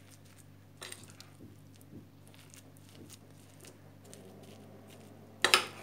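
Metal spoon stirring thick, moist teff porridge with chopped apple and cinnamon in a bowl: faint squelching and light scraping, with a sharper, louder knock about five and a half seconds in.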